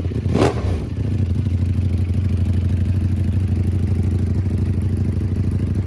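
Ducati Panigale V4 V4 engine running through an aftermarket exhaust: one sharp throttle blip about half a second in, then settling to a steady, pulsing idle.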